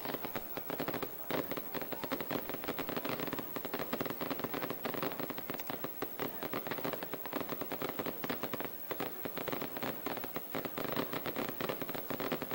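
Firecrackers on the fireworks rig hanging beneath a daytime festival hot-air balloon, going off in a rapid, continuous crackle of many small bangs a second.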